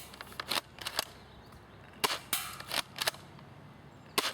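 UTG M183a2 airsoft shotgun being fired and worked: a series of sharp clacks from the shots and the action.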